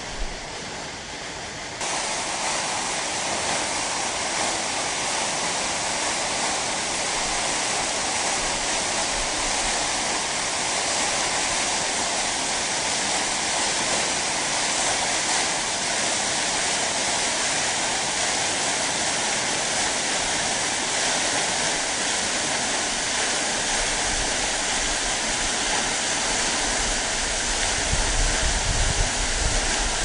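Waterfall: a steady, full rush of falling water that gets suddenly louder about two seconds in. Uneven low rumbling joins it near the end.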